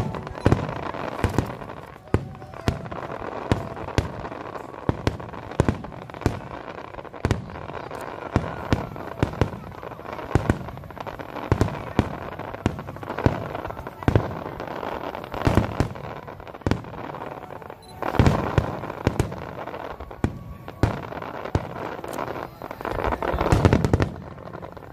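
Fireworks display: a dense run of sharp bangs, several a second, over continuous crackling. There are heavier clusters of bursts about three quarters of the way through and again near the end.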